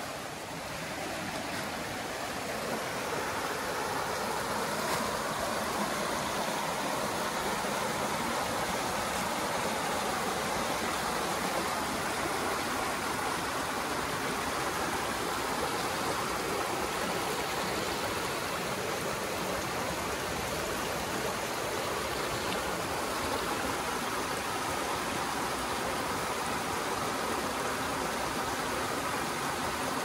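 Steady rush of flowing water, growing louder over the first few seconds and then holding even.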